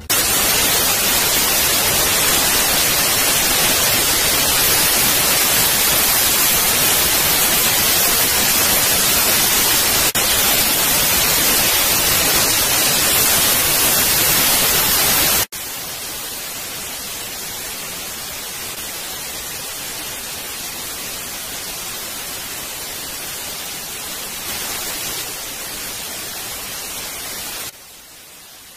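Loud, even static hiss like white noise. About halfway through it drops abruptly to a softer hiss, and it drops again just before the end.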